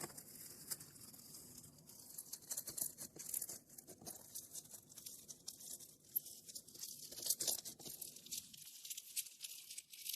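Slime being pressed and worked, giving a dense run of fine crackles and small pops, typical of crunchy slime.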